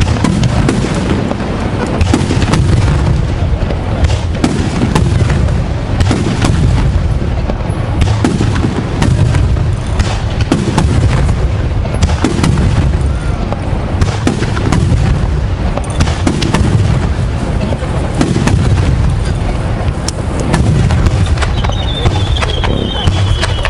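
Aerial fireworks bursting in a dense, continuous run of booms and crackles with deep rumbling between them. Near the end a high whistle falls slowly in pitch.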